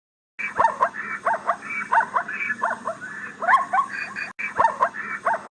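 A wild dog-like animal yipping and yelping in about a dozen short, high calls, mostly in quick pairs. The calls start and stop abruptly, with a brief gap near the end.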